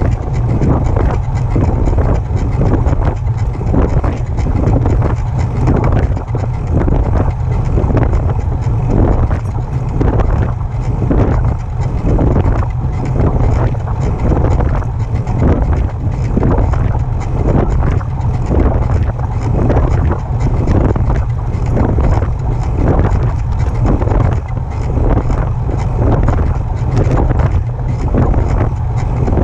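Specialized Turbo electric bike being pedaled, making a rhythmic noise that pulses about one to two times a second, over heavy wind rumble on the microphone.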